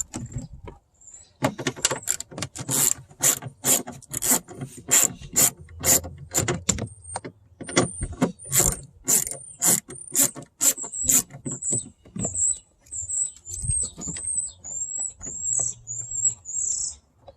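Ratcheting hand tool clicking steadily, about three clicks a second, as it backs out a door-panel screw. Over the last several seconds it turns into a string of short high squeaks.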